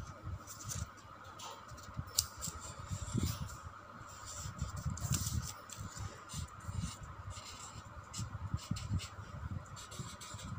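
A felt-tip marker scratching and tapping on paper laid on a clipboard as it draws and writes, with dull low bumps from the paper and clipboard being pressed and handled. A faint steady high hum runs underneath.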